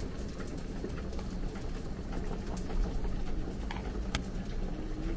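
A few faint light clicks and taps from a rice paddle and plastic onigiri mould as cooked rice is put into the mould, over a steady low kitchen background noise.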